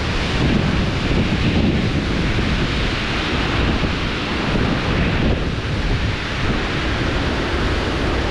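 Strong storm wind rushing and buffeting the microphone: a loud, steady noise that swells and eases a little.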